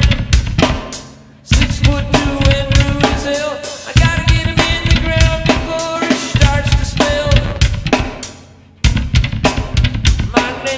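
Rock music with a heavy drum beat under a sustained melody, fading out briefly a few times before the drums come back in.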